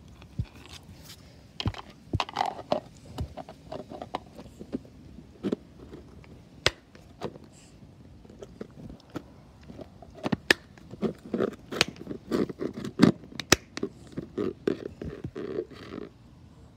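A plastic food container with a snap-lock lid being handled on brick paving: a long run of sharp clicks, taps and short scrapes of plastic against brick, coming thicker and louder in the second half.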